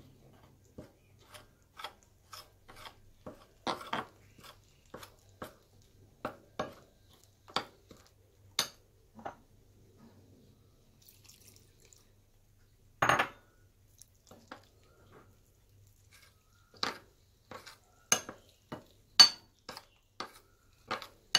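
Metal spoon stirring flour and egg into a batter in a glass bowl, clinking and tapping against the glass in irregular strokes, with a longer, louder clatter about thirteen seconds in.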